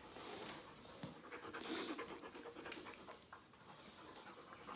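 A dog panting softly, with a few light clicks.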